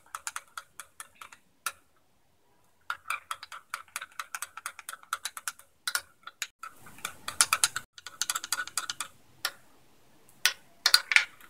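A spoon beating raw egg mixture in a small glass bowl, clicking against the glass several times a second in spells, with a brief silent pause about two seconds in.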